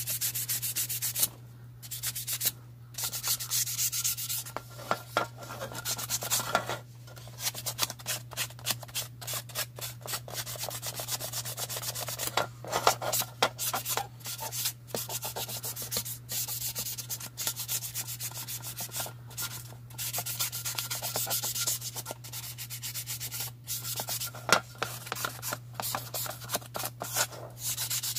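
Hand-sanding the plastic body of a model car kit, in fast back-and-forth scraping strokes with a few short pauses: scuffing the bare plastic ahead of primer.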